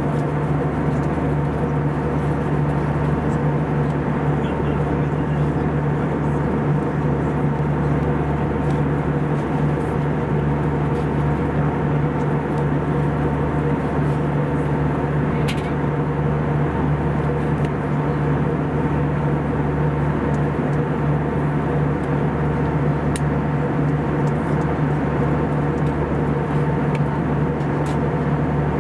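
Steady cabin drone of an Airbus A320-214 in cruise: engine and airflow noise with a constant low hum, unchanging throughout.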